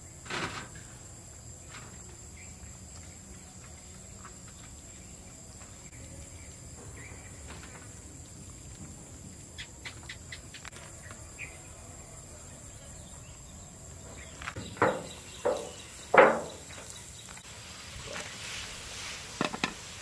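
A steady high chorus of insects chirping, with a few loud sharp knocks or clatters, the loudest cluster a little after halfway, and smaller ones at the start and near the end.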